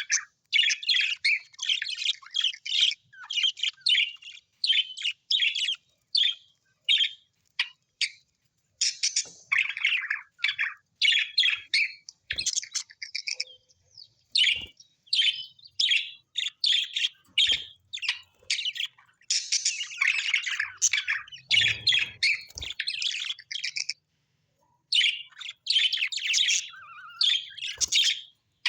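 Small pet parrots chirping and chattering in quick, busy bursts of high notes, with a short pause near the end.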